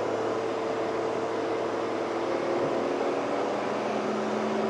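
Mahindra Bolero driving at highway speed, heard from inside the cabin: a steady engine hum over tyre and road noise, the engine note drifting slightly in pitch.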